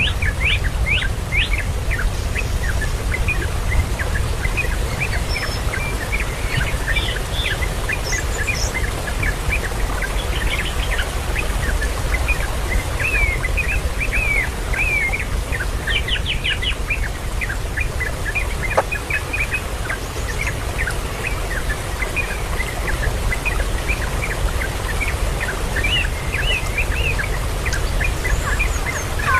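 Birds chirping and calling: many quick, high chirps and short slurred phrases throughout, over a steady low rumble.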